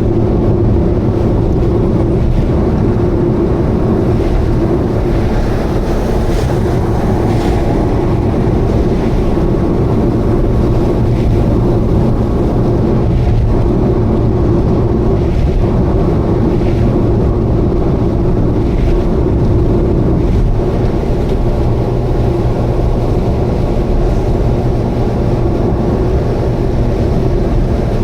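Subaru Vivio KK3's small 660 cc four-cylinder engine and road noise droning steadily at highway cruising speed, with a steady low hum throughout; the owner suspects the abnormal noise is an exhaust leak.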